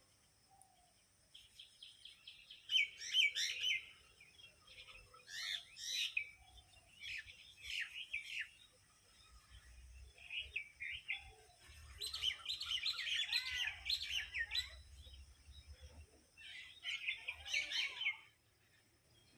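Small birds chirping in a string of quick twittering bouts, each a second or two long with short pauses between, the busiest stretch about twelve seconds in.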